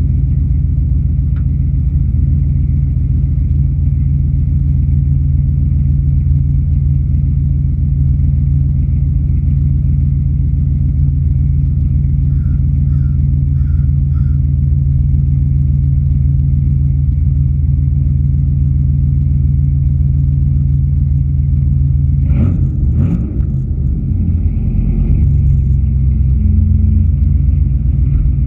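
Pickup truck engine idling after a very cold start, a steady low rumble heard close to the exhaust. A little over twenty seconds in the note wavers, then settles into a deeper, slightly louder idle.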